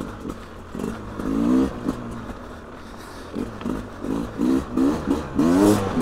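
Beta RR 300 single-cylinder two-stroke enduro engine running at low revs with short throttle blips, a quick run of them after a few seconds and the biggest rev near the end.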